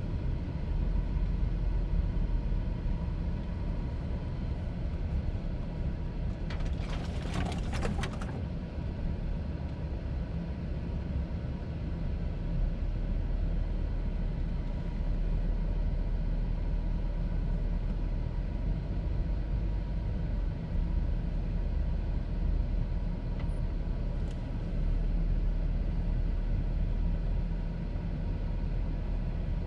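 Steady low rumble of a car on the move. About seven seconds in there is a brief rush of higher noise lasting under two seconds.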